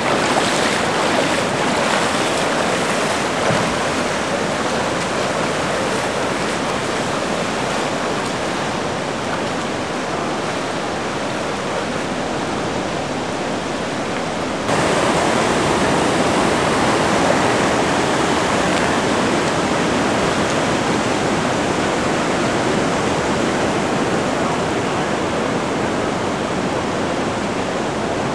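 Floodwater of the overflowing Mad River rushing across a paved street, a loud, steady torrent of churning water. The sound steps up in level about halfway through.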